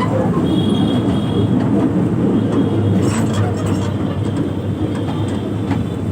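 Toy ride train running along its track: a steady rumble with a few sharp clicks, and a brief high squeal about half a second in.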